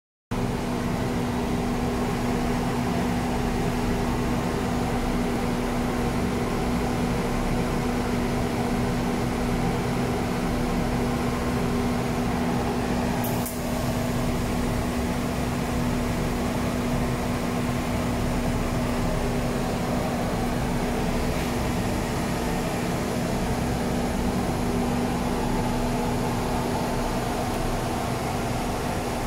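Automated TIG welding station with cold-wire feed running: a steady electrical hum under a hiss, with one sharp click about halfway through.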